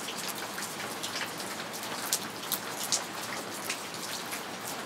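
Steady rain falling, with single drops tapping sharply and irregularly close by over an even hiss.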